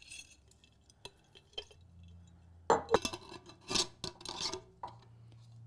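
Handling of a glass jar: a few light clicks and rubbing of hands and greenery against the glass, then several louder scrapes around the middle as a metal lid is fitted onto the jar's rim.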